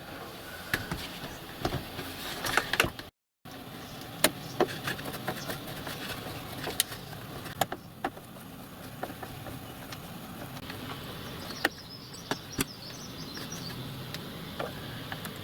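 Scattered light clicks and knocks of a hand screwdriver working screws back into a plastic caravan roof light, with the dome and frame handled. The sound cuts out completely for a moment about three seconds in.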